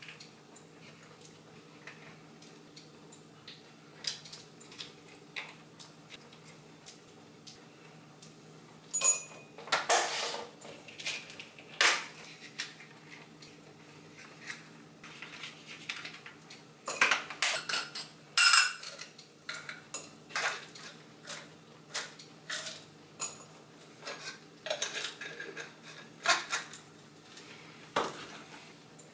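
Cutlery clinking and scraping against a plate while eating, in irregular clusters with a few sharper ringing clinks, over a low steady hum.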